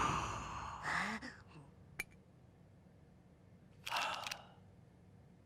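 Background music fades out. Then come short gasp-like vocal sounds from a cartoon character, a sharp click about two seconds in, and a breathy sigh about four seconds in.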